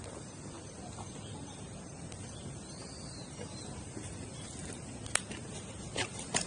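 Pot of water coming to the boil over a campfire: a steady hiss, with a few sharp crackles from the burning wood about five and six seconds in.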